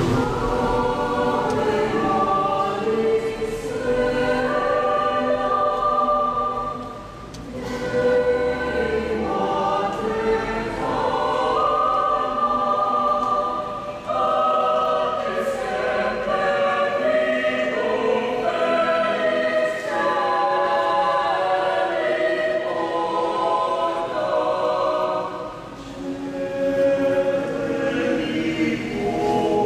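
Mixed choir of men's and women's voices singing together under a conductor, phrase after phrase, with brief breaks between phrases.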